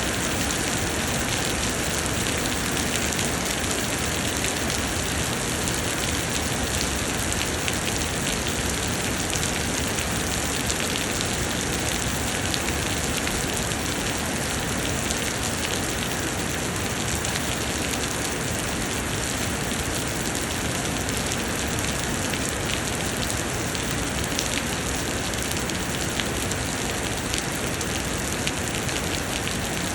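Heavy summer rain falling steadily, a dense even hiss with many small drop patters on surfaces.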